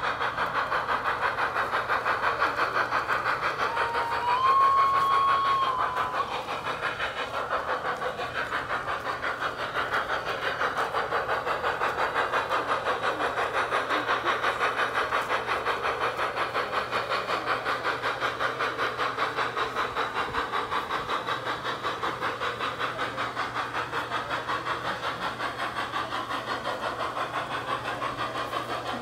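G-scale model steam trains running on a garden railroad with a fast, even rhythmic sound throughout, and a single locomotive whistle of about two seconds that steps up in pitch about four seconds in.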